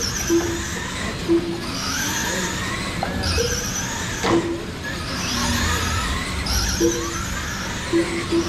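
Radio-controlled electric cars racing on a carpet track: their motors whine, rising in pitch as they accelerate, again every few seconds, with short high squeaks and a sharp knock about four seconds in.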